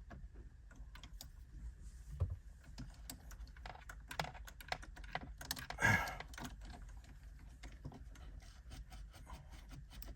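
Irregular light clicks and taps of hands and a small screwdriver working a stubborn spade connector and plastic trim at a steering wheel, with one louder, brief rasp about six seconds in.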